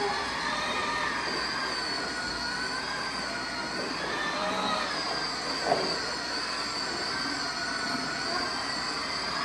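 Battery-powered ride-on toy train running along its plastic track, a steady wavering whine from its electric motor and wheels, with one sharp click a little past halfway.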